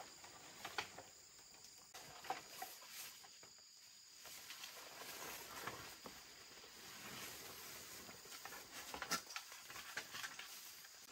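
Faint rustling and scattered light snaps of leaves and twigs in forest undergrowth, over a steady high insect drone.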